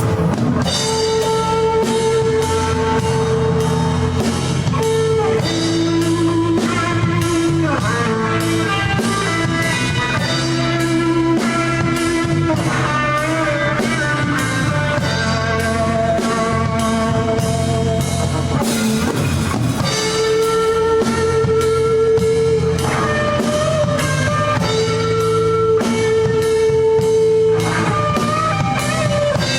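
Live rock band playing an instrumental passage with no vocals: guitar holding long notes, a few of them bent, over a drum kit keeping a steady beat.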